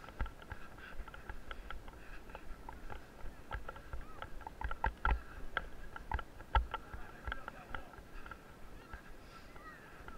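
Footsteps on a dirt course and thumps from a body-worn camera jostling as its wearer moves along, a knock every few tenths of a second. Faint voices of other participants sit underneath.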